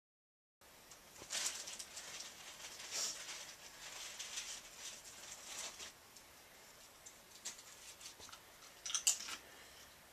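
Handling noise of hands turning and gripping a plastic sunglasses frame close to the microphone: faint scratchy rustling and scraping, with a few sharp clicks about nine seconds in. The first half second is silent.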